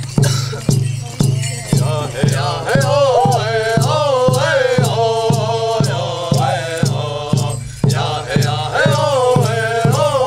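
Hopi men singing a dance chant in unison to a large hand drum. The drum beats steadily about twice a second, and the voices come in together about two seconds in.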